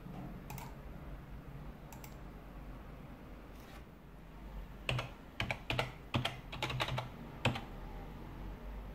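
Typing on a computer keyboard: a few scattered keystrokes, then a quick run of about ten key presses from about five seconds in.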